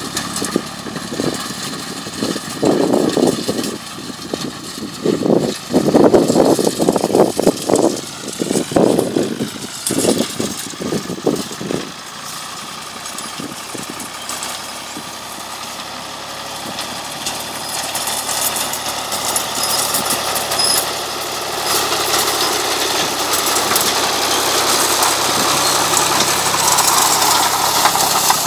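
Ford 4000 tractor engine running steadily as it pulls a rotary hay rake, growing louder in the second half as the tractor comes close. Irregular gusts of wind buffet the microphone over roughly the first dozen seconds.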